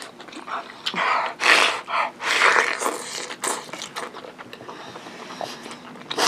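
Eating without hands: two loud breathy sucking and slurping rushes about a second in and again near two and a half seconds as food is taken off the plate with the mouth, followed by wet chewing and lip-smacking clicks.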